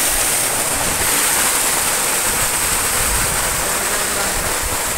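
Water and air spraying hard out of the vent head of ballast water tank 3 in a steady, loud rushing hiss. The tank has been pumped full and is overflowing through its vent during a pressure test.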